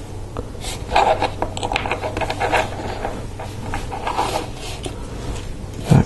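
LEGO Technic plastic parts clicking and scraping as they are handled and slid onto axles by hand: a run of small, irregular clicks and rubs.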